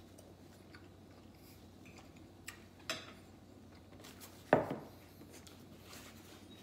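Fork clinking against a ceramic plate a couple of times, then a louder knock about four and a half seconds in as a drinking glass is set down on the wooden table.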